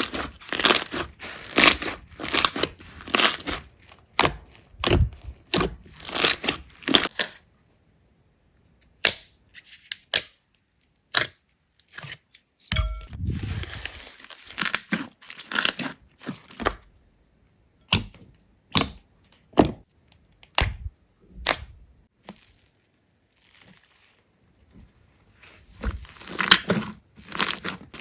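Slime being squeezed, poked and pressed by hand: a run of short squishes, several a second, broken by pauses, with a low thump about halfway through.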